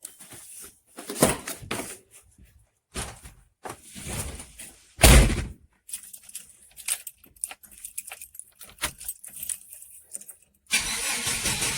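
Keys jangling with scattered clicks and knocks, and a loud thump about five seconds in. Near the end the GMC S-15 pickup's engine starts and keeps running.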